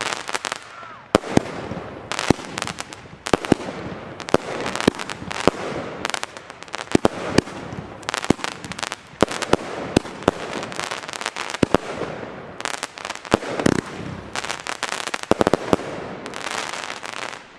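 Argento Kanji consumer fireworks battery firing: an irregular, rapid string of sharp launch and burst bangs, several a second, over a continuous hiss. It stops shortly before the end.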